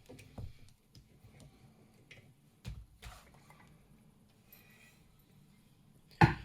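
Scattered small clicks and taps of an open brass padlock and its keys being handled, with a sharp knock just before the end.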